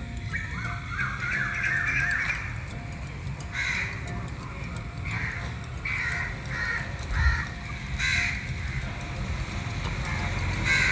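Crows cawing outdoors: single caws spaced a second or more apart, with a quick run of three about six to seven seconds in, over a low steady background rumble.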